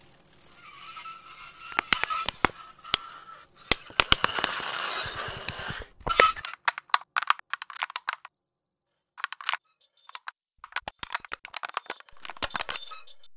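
Experimental electroacoustic sound texture made from processed analogue recordings: a crackling, hissing layer with sharp clicks for about six seconds, then scattered clusters of dry clicks broken by stretches of dead silence.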